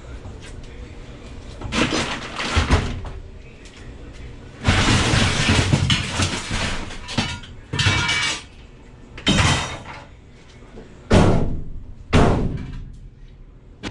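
Repeated clattering and scraping of hard objects being handled, in about six separate bursts, several ending in a falling scrape.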